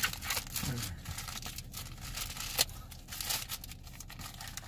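Plastic wrapping being torn and crinkled off a product box by hand, in irregular rips and crackles.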